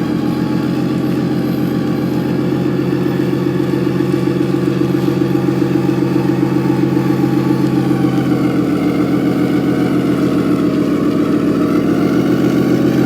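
An engine running steadily with a fast, even pulse, growing slightly louder.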